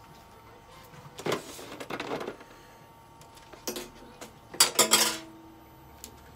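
Handling noises of a cat in a plastic cone collar being moved about on a stainless steel exam table: scattered rustles and knocks, then a quick cluster of louder metallic knocks and rattles about five seconds in.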